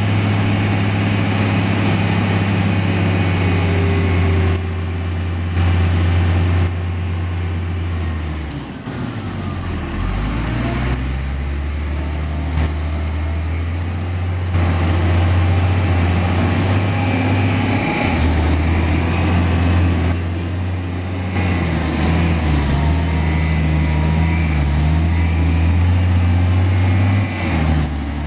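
Caterpillar 740 articulated dump truck's diesel engine running hard while the body tips to dump its load. The engine note drops and picks back up about a third of the way in, then changes pitch several times as the truck works and pulls away.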